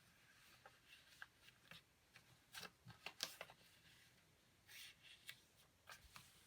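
Faint rustling and crinkling of a sheet of printer paper being folded and creased into a paper airplane wing, with scattered small crackles.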